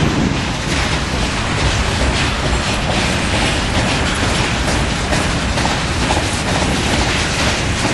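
Empty covered hopper cars of a freight train rolling past close by: a steady, loud rumble of steel wheels on rail with repeated clacks and rattles.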